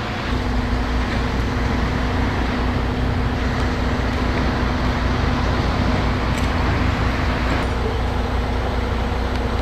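Mobile crane's diesel engine running steadily: a constant low rumble with an even hum over it.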